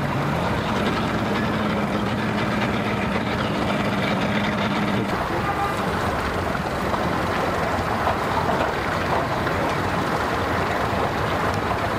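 Outboard motors running at a boat ramp: a steady engine hum steps up a little in pitch right at the start, holds, and gives way about five seconds in to a rougher, steady engine rumble.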